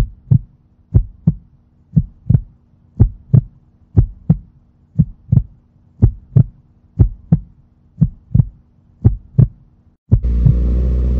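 Heartbeat sound effect: ten double thumps, one lub-dub pair a second, over a faint hum. About ten seconds in it cuts suddenly to a motorcycle engine running steadily.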